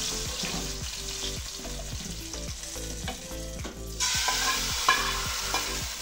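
Hot tadka oil with garlic, cumin, whole red chillies and curry leaves sizzling as it is poured and scraped from a small frying pan into a pot of yogurt kadhi. A metal spoon scrapes and clicks against the pan. The sizzle dips briefly and comes back louder about four seconds in.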